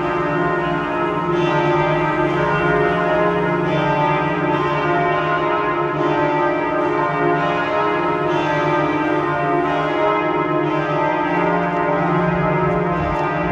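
The bells of the Kaiser Wilhelm Memorial Church pealing without a break, a new stroke about once a second over the ring of the ones before.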